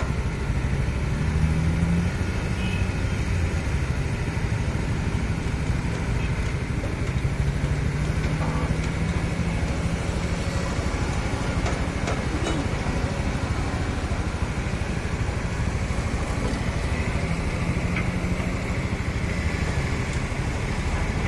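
Excavator's diesel engine running steadily as the machine works, its pitch rising and falling slightly a few times.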